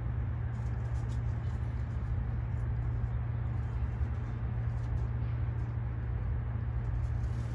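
Steady low hum and rumble at an even level, with no distinct calls from the squabs.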